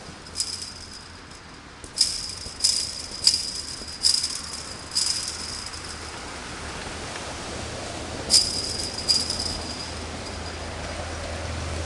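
Chain-link fence rattling and jangling as it is kicked, about eight sharp strikes: six in the first five seconds, then two more about eight and nine seconds in.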